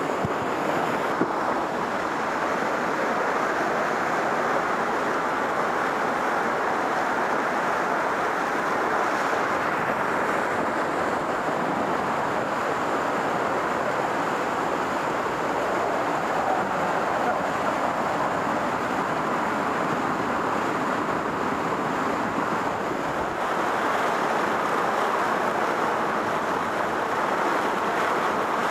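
Small waterfall pouring over rocks into a pool, heard up close as a loud, steady rush of falling water.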